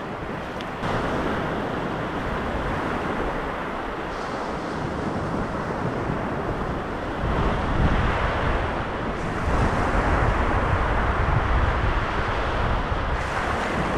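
Sea waves breaking on a pebbly beach, with wind buffeting the microphone; the low wind rumble grows heavier about halfway through.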